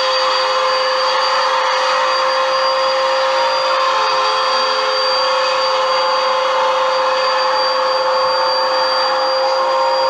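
Bissell bagless upright vacuum cleaner running on carpet: a loud, steady motor whine over a rushing airflow hiss, unchanging throughout.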